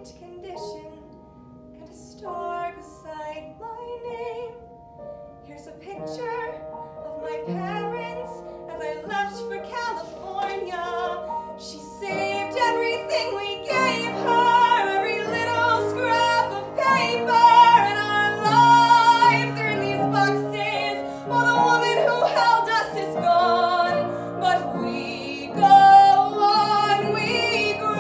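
A woman singing a musical-theatre song with upright piano accompaniment, her voice growing louder and fuller from about halfway through.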